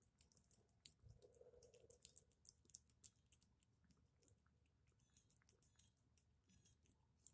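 Calico cat chewing wet cat food: faint, irregular little clicks and smacks of its mouth working the food.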